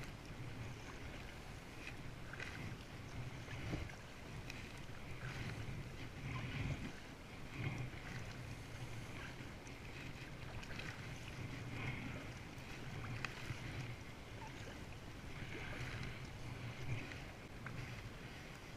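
Kayak paddle strokes splashing in the sea, one about every second or so, over a steady wash of water around an inflatable kayak.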